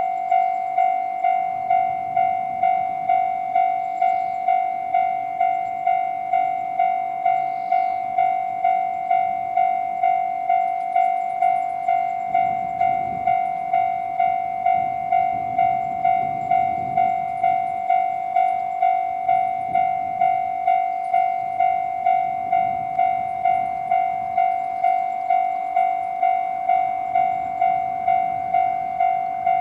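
Japanese railway level-crossing alarm sounding the electronic JR East ("Tohoku") bell tone, a steady ringing pulse about twice a second. From about 12 seconds in, a JR E129-series electric train passes with a low rumble under the bell.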